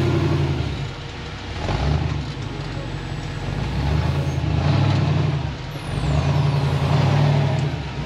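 Rock-crawling buggy's engine revving in repeated surges, easing off briefly about a second in and again near six seconds.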